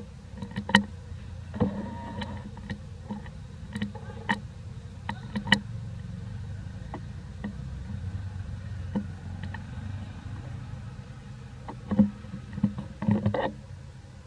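Outdoor ambience: a steady low rumble with scattered sharp clicks and crackling rustles, busiest about two seconds in and again near the end.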